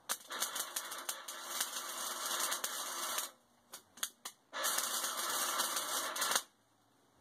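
Wire-feed (MIG) welder's arc crackling as it welds steel. One run of about three seconds, then a few short strikes, then a second run of about two seconds that stops suddenly.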